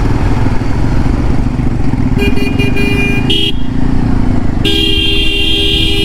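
A vehicle horn gives a burst of short toots about two seconds in, then a long honk from about five seconds in. Under it is the steady rumble of a motorcycle engine and wind on a ride over a rough road.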